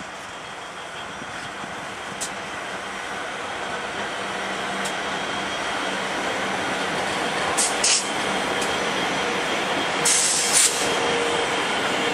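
Coal train passing: the last of the 82 class diesel locomotives goes by with a steady engine drone, then the coal hopper wagons roll past with a growing rumble of wheels on rail. A few short, sharp high-pitched wheel squeals come near the middle and again later.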